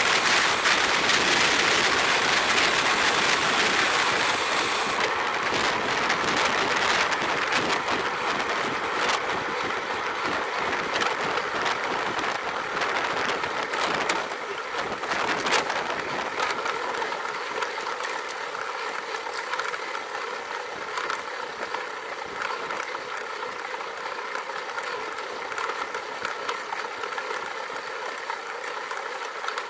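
Road bicycle riding at speed: wind rushing over a bike-mounted camera's microphone together with tyre and road noise, with scattered clicks and rattles from the bike. The rush is loudest in the first few seconds and eases off gradually as the pace drops.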